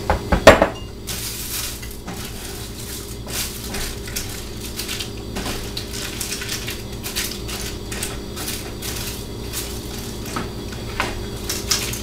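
A few loud clatters as dry egg noodles go into a stainless steel skillet, then a wooden spoon stirring them into the sauce, with irregular small knocks and scrapes against the pan.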